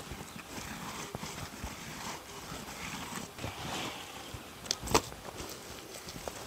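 Gloved hands scooping loose soil from a plastic bucket and packing it into an earth trench: a steady rustle and crumble of dirt, with a sharp knock about five seconds in.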